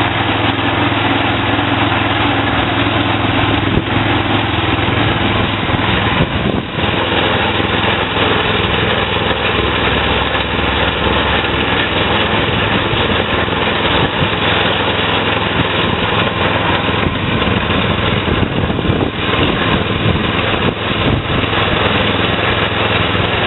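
Kohler 6.5 HP single-cylinder petrol engine on a concrete kerbing machine running steadily under load as it extrudes a concrete kerb, with a few short knocks along the way.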